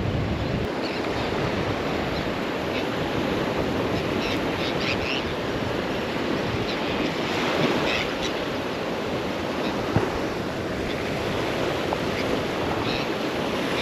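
Surf washing onto the beach, with steady wind buffeting the microphone; a brief tap about ten seconds in.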